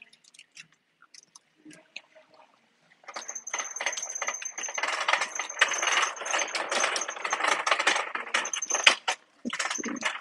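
Plastic and metal clothes hangers clicking and scraping along a metal clothing rack as garments are pushed aside, with fabric rustling. It starts with a few scattered clicks, then a dense rattling run of about six seconds that breaks off briefly near the end.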